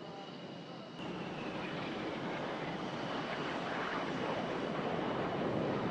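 Jet aircraft flying past: a rushing engine noise that jumps louder at a sudden cut about a second in and keeps building.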